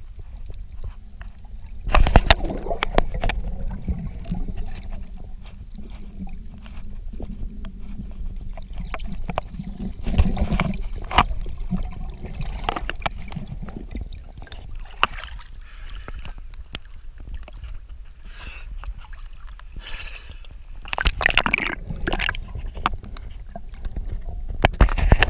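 Underwater sound picked up by a snorkeller's submerged camera: a steady low rumble of water with scattered sharp clicks and gurgling, splashy bursts, the loudest about two, ten and twenty-one seconds in.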